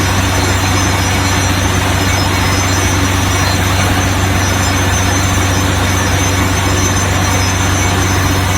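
Small DC motor running steadily with a low, even hum.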